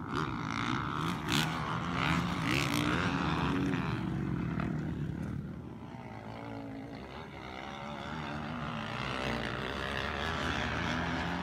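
Motocross dirt bike engines revving, the pitch rising and falling with the throttle. A couple of brief knocks in the first few seconds.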